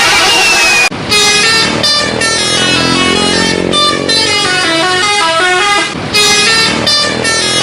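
Bus 'telolet' multi-tone horn playing a quick tune of short notes that step up and down in pitch. It starts just before a second in, after a brief noisy stretch, and breaks off briefly about six seconds in before starting again.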